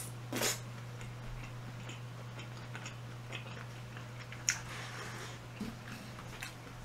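Quiet eating sounds: scattered light clicks of utensils against dishes and soft chewing, with a sharper click about four and a half seconds in, over a steady low hum.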